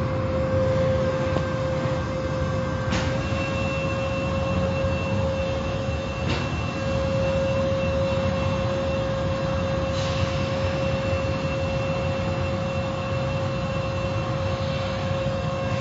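Automatic car wash machinery running: a steady hum with a held tone over a constant rushing noise. Three sharp knocks sound a few seconds apart.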